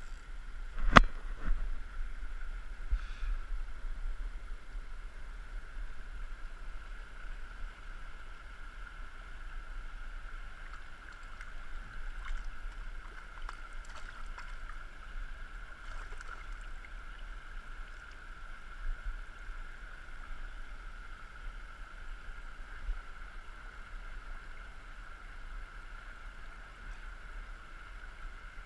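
Shallow stream running over stones: a steady rush of water. A single sharp knock about a second in, and a few faint clicks later on.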